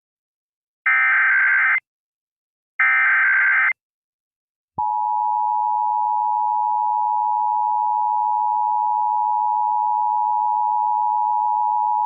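Emergency Alert System tones. First come two bursts of SAME digital header data, each about a second long and about a second apart, which encode the alert as a Required Monthly Test. Then, about five seconds in, the steady two-tone EAS attention signal starts and holds.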